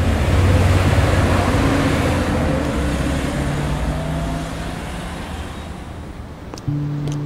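A city bus running beside the stop with street traffic. The rumble is loudest about a second in, then fades away. A low steady tone comes in near the end.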